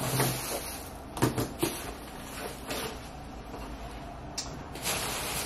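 A few scattered short knocks and rustles from someone leaning over and rummaging for a plastic shopping bag.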